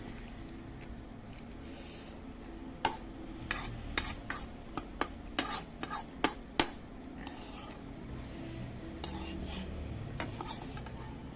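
Cutlery clinking against a bowl as seblak is stirred and scooped: a quick run of sharp clinks about three seconds in, then a few more near the end.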